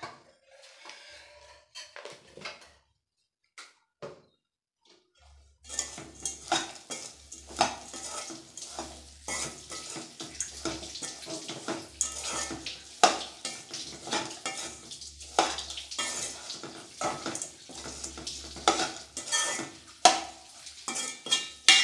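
A slotted metal spoon scraping and clinking against an aluminium kadai as a dry beetroot stir-fry is stirred. Only a few faint taps come at first; from about five seconds in there is a dense, steady run of scrapes and sharp clinks.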